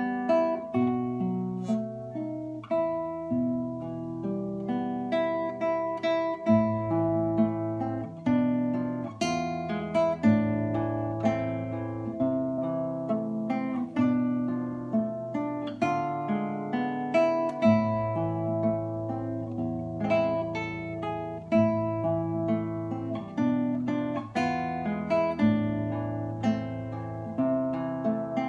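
Classical nylon-string guitar played solo, fingerpicked: a steady flow of plucked notes that ring and fade over held bass notes.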